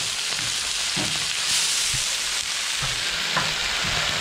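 Chopped napa cabbage sizzling steadily in hot oil in a wok, just added to fried pork, shallots, dried scallops and shrimp. A metal spatula stirs through it with a few light scrapes and knocks against the pan.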